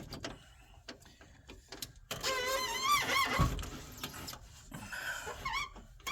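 A 1994 Geo Metro's manual window regulator being cranked, the glass scraping and giving a wavering squeal about two seconds in and again briefly near the end. The glass is binding in its door channel.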